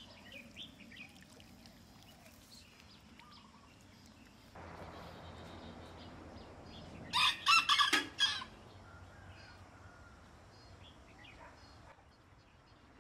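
A rooster crows once about seven seconds in, a loud call of about a second and a half that drops in pitch at the end. Faint small-bird chirps sound near the start.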